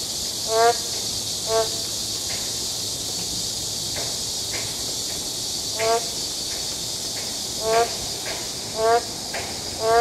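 Boreal digging frogs (Kaloula borealis) calling from a rain puddle: six short nasal calls, spaced irregularly, over a steady high hiss.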